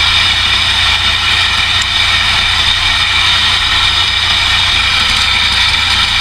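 Kubota tractor's diesel engine running steadily, with an even, unbroken drone.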